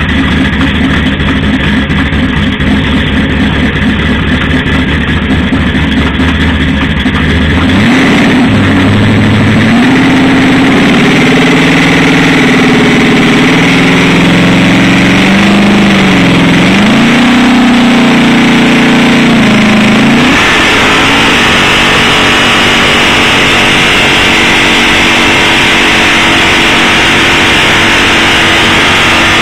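Lifted 1969–72 Chevrolet pickup's engine idling, then revved hard about eight seconds in, its pitch wavering up and down for some twelve seconds as it spins the rear tyres in a burnout. From about twenty seconds in the engine note gives way to a steady noise of the tyres spinning on concrete.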